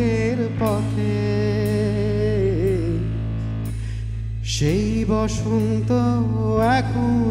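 Live instrumental interlude of a Bengali song: a bansuri (bamboo flute) plays an ornamented melody with bends and wavers over a steady low held note. The melody pauses briefly past the middle and comes back in with a breathy attack.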